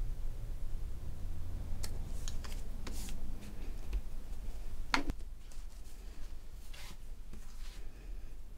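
Paper and craft supplies being handled on a tabletop: a few light clicks and taps and some paper rustling, the sharpest click about five seconds in, over a low steady hum.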